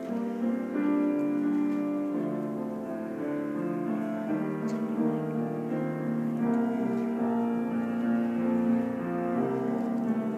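Piano playing held chords, with no singing or drums yet.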